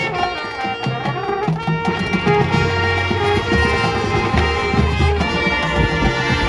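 High school marching band playing its field show music: held chords over a bass line, with frequent drum hits.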